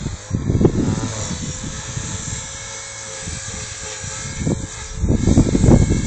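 Align T-Rex 450 electric RC helicopter in flight, its motor and rotor giving a steady whine. Heavy wind buffets the microphone with low rumbling gusts about a second in and again near the end, and these gusts are the loudest sound.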